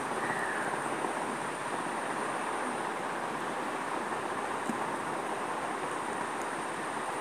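Steady rushing background noise with a thin high whine above it, unchanging throughout.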